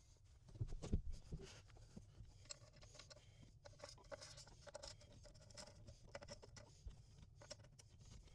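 Faint clicks, taps and rustling of hands handling small mounting hardware and trim pieces in a small space, with a louder knock about a second in.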